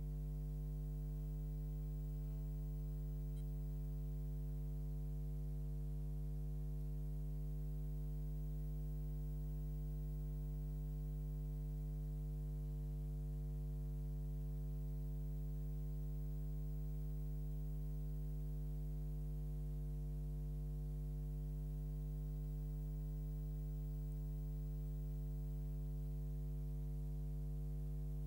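Steady low electrical mains hum with no other sound.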